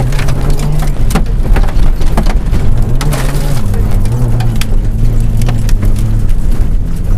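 Rally car engine running hard, heard from inside the stripped cabin, its note rising and dropping several times as the driver works through the gears. Gravel and stones knock and rattle against the underbody throughout.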